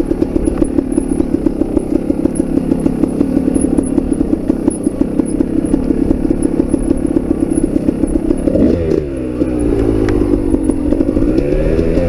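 Two-stroke Kawasaki KDX dirt bike engine idling with a quick, uneven pulsing beat. About eight and a half seconds in it revs, its pitch climbing and falling several times.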